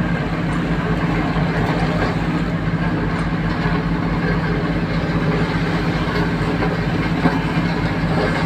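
Sakai vibratory road roller running steadily while compacting a road bed: the diesel engine's constant low hum with the rapid pulsing of the vibrating drum underneath.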